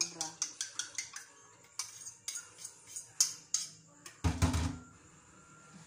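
A utensil clicks quickly and repeatedly against a dish of raw egg, as when eggs are beaten or scraped, with scattered clicks after. About four seconds in comes a louder, deeper thump of dishware.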